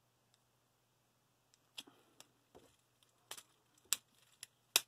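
Sharp plastic clicks and taps of a War for Cybertron Springer action figure's parts being pushed and snapped by hand. About ten come at irregular times, starting about a second and a half in, with the loudest near the end.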